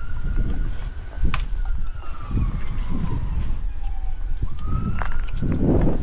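A siren wailing, its pitch slowly rising, falling away over several seconds and rising again near the end, heard over wind rumbling on the microphone and scattered clicks.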